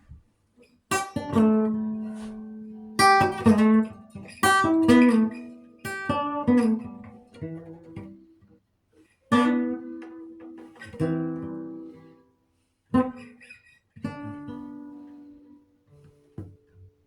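Acoustic guitar played slowly, single chords struck and left to ring out and fade, with short pauses between them.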